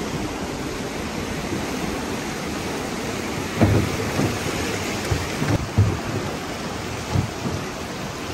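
River water rushing and splashing around a boat's hull as it floats through riffles, with wind on the microphone. A few low thumps come in the second half.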